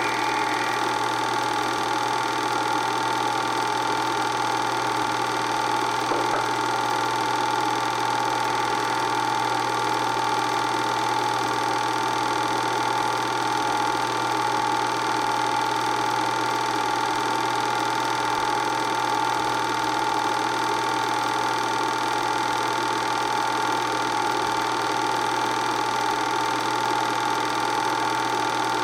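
Movie projector running: a steady mechanical whirr with a constant high-pitched whine, unchanging throughout.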